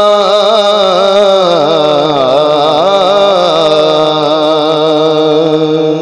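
A man singing a naat, drawing out the end of a line in one long, wavering, ornamented note that slides down in pitch about two seconds in.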